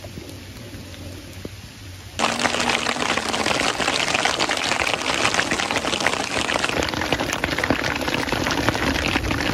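Rain falling, light at first; about two seconds in it cuts suddenly to much louder, heavy rain, a dense patter of countless drops.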